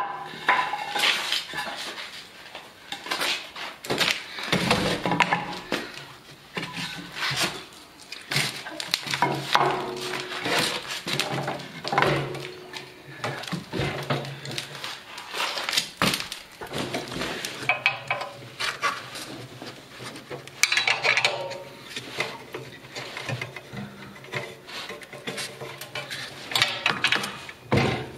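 Irregular metallic clinks and knocks of a wrench and bolts working on a portable generator's steel frame during assembly.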